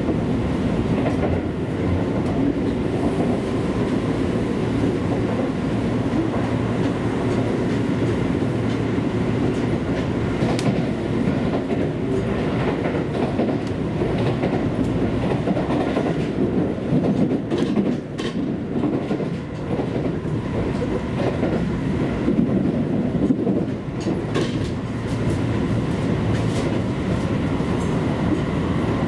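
Seibu Railway electric train running along the line: a steady rumble of wheels on rail with a faint whine, and clicks at intervals as the wheels pass over rail joints.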